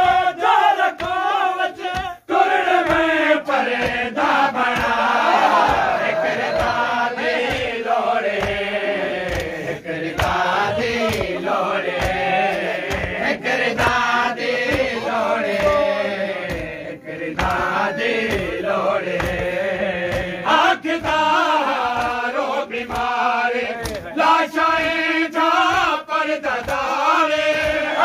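Men chanting a noha, a Shia lament, together, with steady chest-beating (matam) in time, about two strikes a second.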